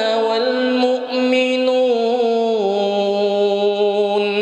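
A man's voice in melodic Quran recitation, holding one long drawn-out note at the end of a phrase. The note steps down in pitch a little past halfway through.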